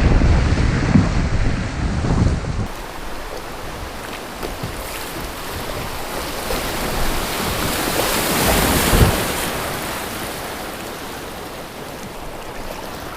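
Flowing river water rushing steadily, with wind buffeting the microphone for the first few seconds. The rush swells briefly about two-thirds of the way through.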